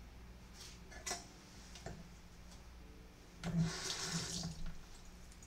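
Soup being slurped from a spoon: one short wet slurp about three and a half seconds in, lasting about a second, after a light click about a second in.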